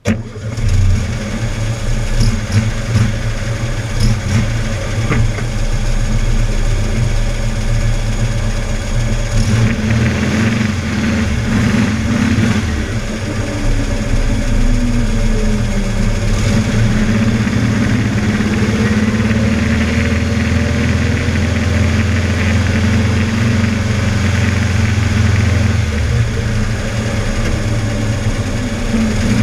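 Air-cooled Volkswagen flat-four engine firing up right at the start and then running steadily, heard close up from inside the engine compartment. Its revs fall and rise in slow sweeps through the middle as the car is driven.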